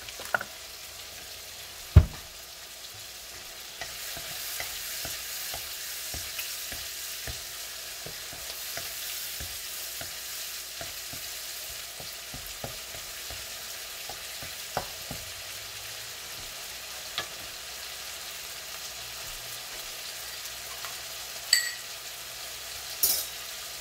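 Garlic sautéing in hot oil in a pan, with a utensil stirring and scraping against the pan as it sizzles steadily; a sharp knock about two seconds in and a few more clicks near the end.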